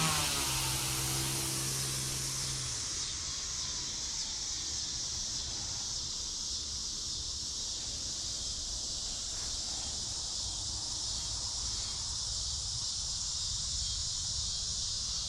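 An RC helicopter's electric motor and rotor whine fades out over the first couple of seconds as the helicopter moves away. After that comes a steady high-pitched hiss over a low rumble of wind.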